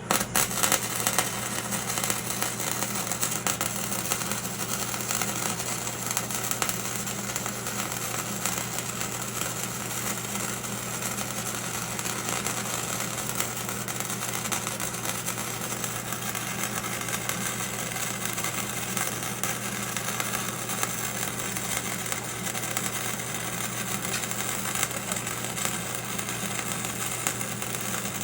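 Electric arc welding on steel I-beam: a steady crackle of the arc over the welding machine's low mains hum, held as one continuous bead.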